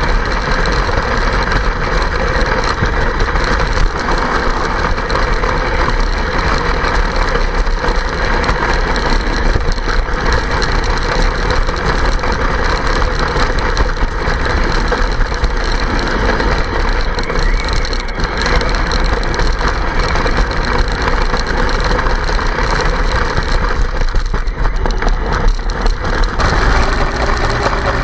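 Radio-controlled Kyosho Blizzard snowcat running over snow: a continuous mechanical rattle with clonking, which the owner thinks may just be ice chunks but may need a look.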